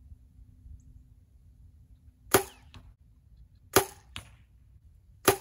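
Three compound bow shots about a second and a half apart, each a sharp snap of the string followed less than half a second later by a fainter thud of the arrow striking the target downrange.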